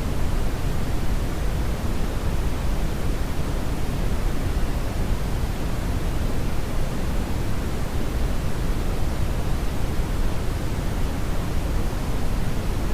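Steady synthetic brown noise: an even, deep rushing hiss weighted toward the low end, unchanging throughout.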